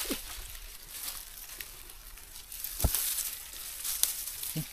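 Dry leaves and undergrowth rustling and crackling as hands push through them to the ground, with scattered small snaps and one sharp knock a little under three seconds in.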